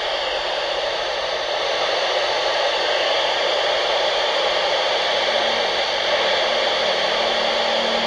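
Handheld amateur radio transceiver tuned to the 29.6 MHz FM channel, its speaker giving a steady, fairly loud hiss of FM static with no station coming through.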